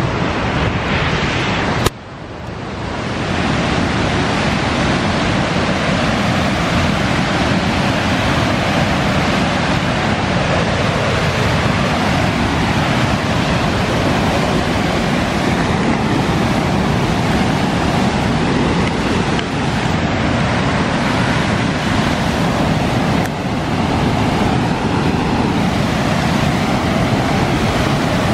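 Waterfall rapids rushing, a loud steady wash of water noise, broken about two seconds in by a sharp click and a brief dip in level.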